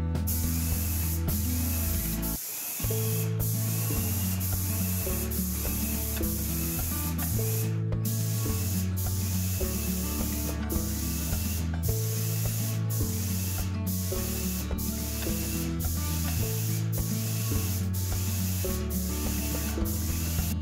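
Background music with a stepping bass line and a steady beat, over the steady hiss of an airless paint sprayer spraying primer; there is a short break in the low notes a little over two seconds in.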